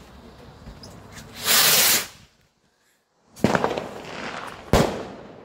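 Fireworks: a loud hiss lasting about half a second, then after a brief dead gap two sharp bangs a little over a second apart, with crackling after the first.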